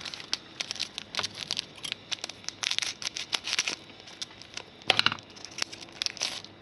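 Donruss Soccer 2015 foil card pack crinkling and tearing as it is ripped open: a run of sharp crackles, thickest around three seconds in, with the loudest burst about five seconds in.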